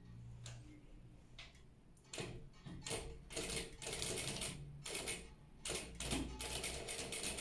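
Industrial sewing machine stitching through folded silk in short runs, starting and stopping several times from about two seconds in, with faint clicks before it starts.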